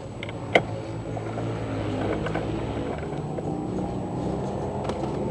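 Racing quad engine running steadily, slowly growing louder, with one sharp knock about half a second in.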